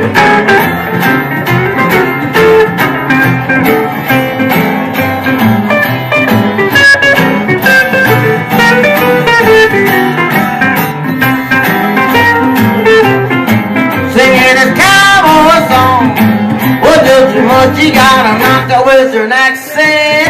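Live country band playing an up-tempo boogie on acoustic guitar, electric guitar and a Fender steel guitar, with wavering, sliding notes in the second half.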